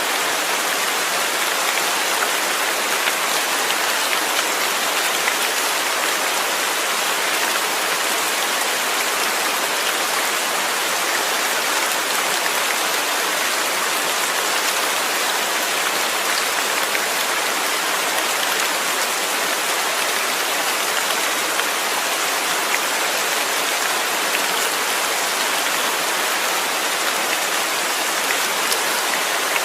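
Steady rain falling, a dense even hiss with faint scattered drop ticks.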